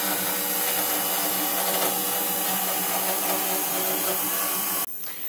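Electric motor running steadily, with a hum made of several even tones and a strong hiss, stopping abruptly near the end.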